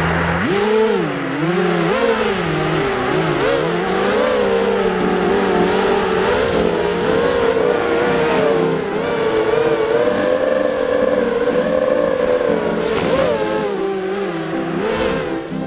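The brushless motors of a Hive 210 FPV racing quadcopter whining in flight, heard from its onboard camera, the pitch rising and falling over and over as the throttle changes.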